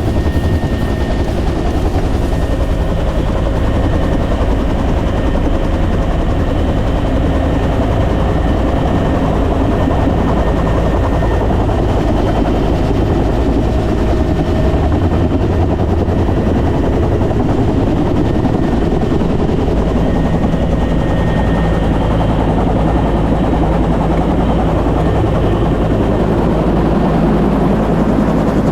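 Huey (Bell UH-1) helicopter running steadily, a loud, continuous rotor beat and engine noise.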